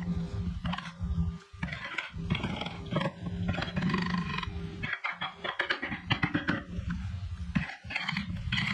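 Handheld power carving tool grinding into wood: a steady motor hum under a rough scraping noise, with the cutting breaking off briefly a few times between passes.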